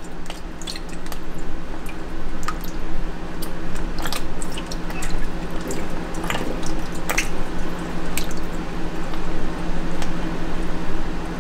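Water sloshing and dripping in a plastic tub as a gloved hand moves underwater, with many small splashes, drips and wet squishes of the waterproof winter glove.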